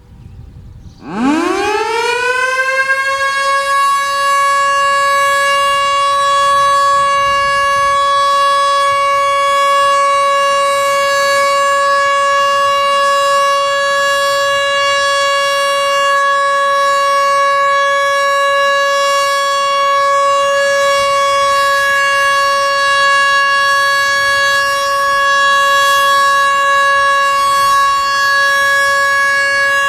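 Federal Electric Model 2 outdoor warning siren starting up for its routine test. It winds up about a second in, climbing quickly in pitch, then holds one steady, loud tone.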